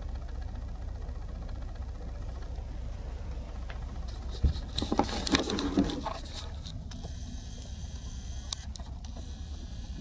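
Steady low hum, with a burst of rustling and a few knocks about four and a half to six seconds in as the camera is handled and moved over the bedding.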